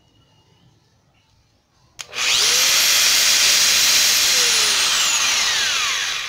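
Bosch GWS 9-125 S 900 W variable-speed angle grinder running unloaded with no disc fitted: switched on with a click about two seconds in, it spins up fast to a high whine, runs briefly, then is switched off and winds down, the whine falling in pitch as it coasts to a stop.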